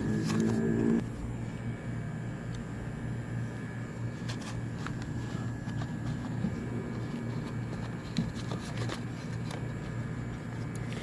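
Air-conditioning unit humming. A louder hum of several pitches cuts off about a second in, leaving a steady low hum with scattered light clicks and taps.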